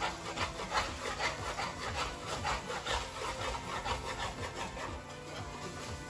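A cooking utensil scraping and stirring shrimp around a frying pan, in quick repeated strokes about two to three a second that ease off near the end.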